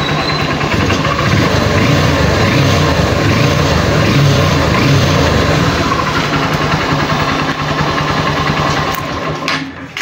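Honda TMX Supremo's single-cylinder four-stroke engine running steadily, dropping off near the end. It started on the first push of the button now that its grounded wiring harness has been replaced.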